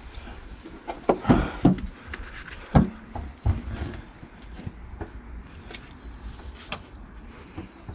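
A few short knocks and clunks over a low steady rumble, the loudest about three seconds in, followed by a few fainter taps.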